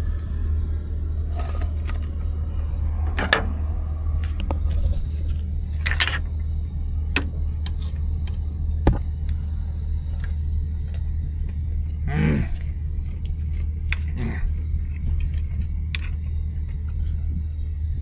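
A steady low rumble with scattered short clicks and knocks, like utensils and crab shell against a plate.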